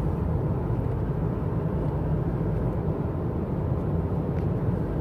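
Steady low rumble of a car driving at speed on a paved road, heard from inside the cabin.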